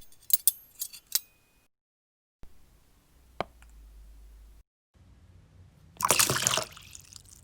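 Three short sound clips cut together with dead silence between them: first a quick run of light clicks and clinks, then a single sharp click over a low hum, then a brief loud noisy burst about six seconds in.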